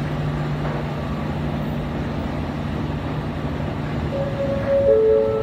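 Metro station escalator running with a steady low hum over a wash of station noise. About four seconds in, two steady electronic tones sound, the second one lower and starting just before the first stops.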